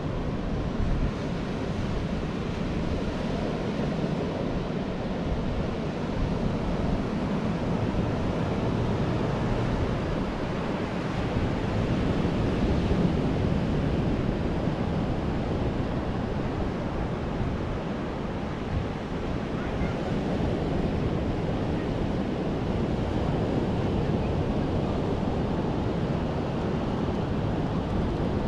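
Ocean surf breaking and washing ashore, a steady rushing that swells and eases slowly, with wind buffeting the microphone.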